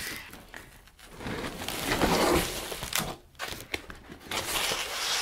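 Large flexible backdrop sheets rustling and flexing as they are pulled out of a fabric carrying case and handled. The rustle is loudest about two seconds in, with a short sharp click about three seconds in.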